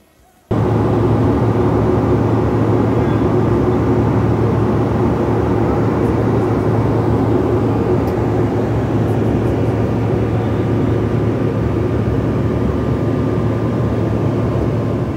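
Steady, loud engine and air noise inside a jet airliner's cabin in flight, with a constant low hum. It starts abruptly about half a second in.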